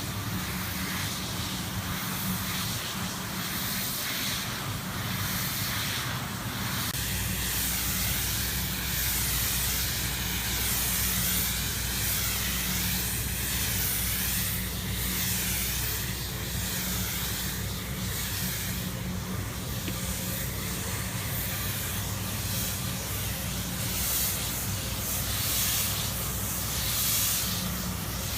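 Steady hiss of high-pressure spraying, with a machine's low hum coming in about seven seconds in and running on under it.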